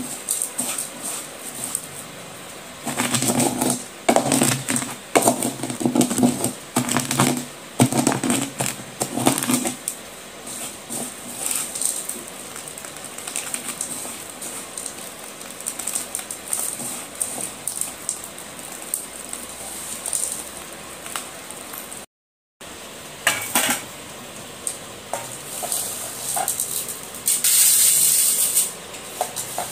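Broken slate pencil chips crushed and rubbed by hand against a plate, a gritty crunching and scraping that is loudest and densest in the first third. Later the chips are rubbed through a steel mesh sieve, with a loud hissing rattle near the end.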